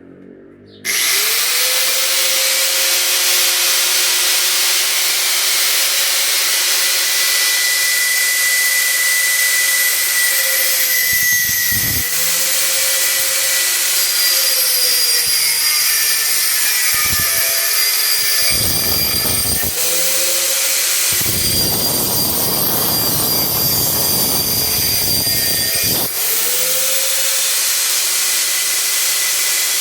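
Electric grinder running at speed and cutting a small iron bar, switched on about a second in. Its motor note sags several times as the disc bites into the metal, with the harshest cutting noise in a long stretch near the middle.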